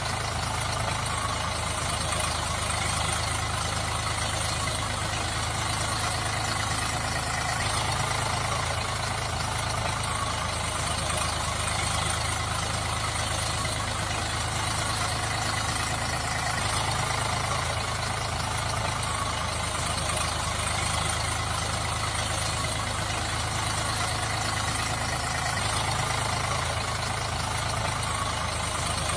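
Steady, unchanging tractor engine idling sound, with a low hum and an even haze above it.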